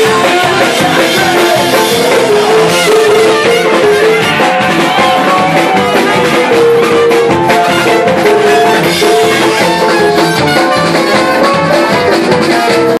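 Ska-punk band playing loud and live: electric guitar, bass guitar and drums, with a horn section playing held notes over the beat.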